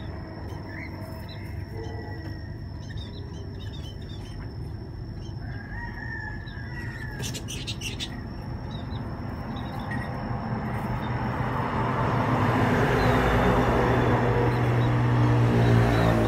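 Small birds chirping repeatedly over a steady thin high whine, with a longer gliding call like a rooster's crow near the middle. A low droning hum swells steadily louder over the last third.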